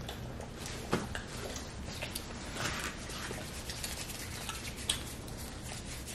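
Faint, scattered clicks and light handling noises of people eating at a table, with a few sharper ticks, over a low steady hum.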